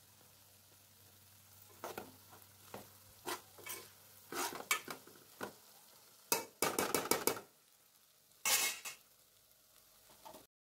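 Steel spoon stirring kantola (spiny gourd) sabzi in a steel pot, scraping and clinking against the pot's sides in irregular strokes that start about two seconds in and come thickest toward the middle. The sound cuts off abruptly near the end.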